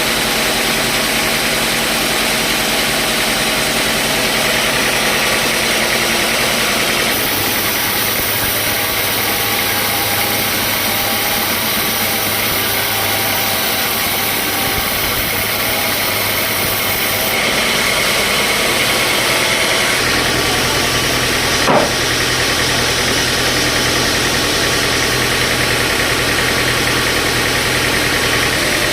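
Sawmill machinery running steadily with a loud, even drone, its tone shifting a few times, and one short sharp knock about 22 seconds in.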